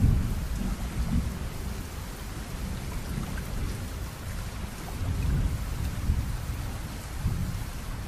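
Steady rain hiss with low rolls of thunder that swell and fade, strongest at the start and again about five seconds in.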